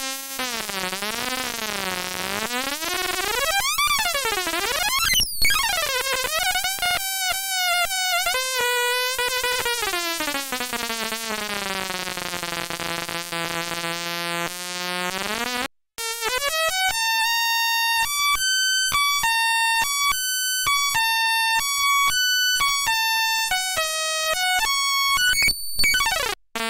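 Homemade Atari Punk Console, a 555-timer square-wave noise synth, buzzing with its pitch sweeping and wobbling up and down, then gliding down to a low steady drone. After a brief cut-out about 16 seconds in, it steps rapidly back and forth between a few fixed pitches in a choppy, stuttering pattern, and it cuts out briefly again near the end.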